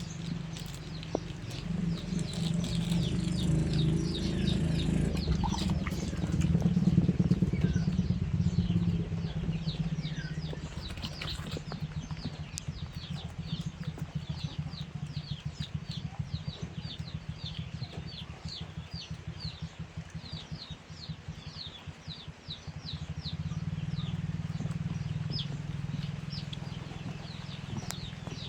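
Small birds chirping in quick, repeated calls over a low steady rumble.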